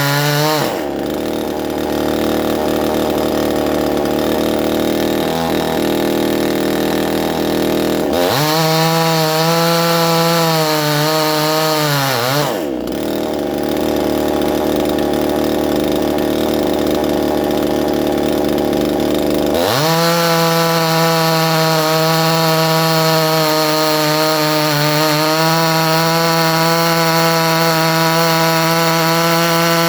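Chinese 52 cc two-stroke chainsaw with a modified intake and a Husqvarna 372 XP carburettor, held at full throttle and cutting wood twice. Its pitch drops sharply as the chain bites in, about a second in and again about twelve seconds in, and climbs back as it comes free, revving high and steady toward the end.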